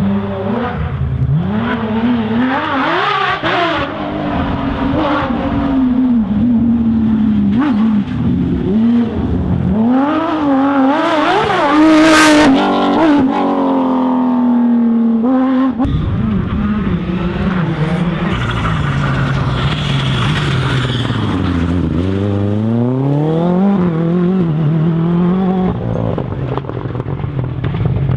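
Rally car engines revving hard, pitch climbing and dropping through gear changes as the cars are driven flat out on a stage. There is a loud sharp crack about twelve seconds in. Partway through, a second car takes over, revving down and back up.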